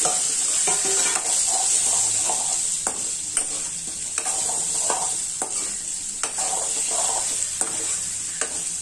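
Boiled baby potatoes stirred with a metal spoon in hot oil in a metal kadai: a steady sizzle, with irregular clicks and scrapes of the spoon against the pan.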